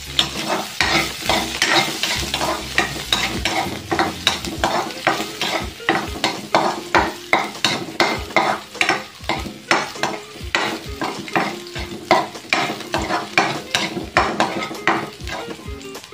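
Chopped garlic sizzling in hot oil in a steel wok while a metal ladle stirs it, scraping and knocking against the wok about twice a second.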